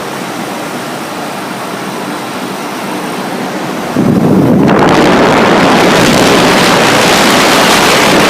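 Large HVAC condenser fans running with a steady whooshing rush; about four seconds in, the sound jumps to a much louder blast of air, the fan's discharge blowing across the microphone.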